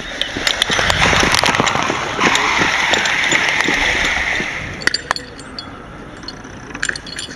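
A fire hose being run out and dragged over paved ground, a rushing scrape that holds from about a second in until near five seconds, with scattered sharp clicks and knocks of hose couplings and gear, a few near the end.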